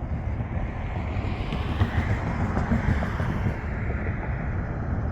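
Street traffic: a vehicle passing, its tyre and engine noise swelling and then fading over a couple of seconds, over a steady low rumble of wind on the microphone.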